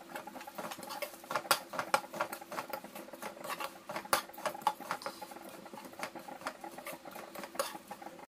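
Steel ladle stirring and scraping crisp crushed papad pieces in a nonstick wok: irregular dry clicks and crackly rustling, several a second.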